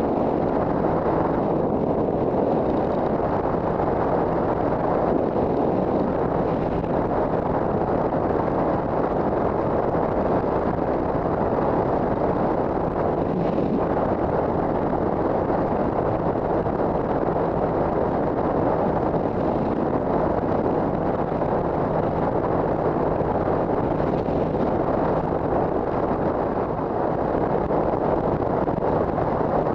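Steady wind rush on a helmet microphone, with the 2007 Triumph America's 865cc parallel-twin engine running underneath at an even cruising speed.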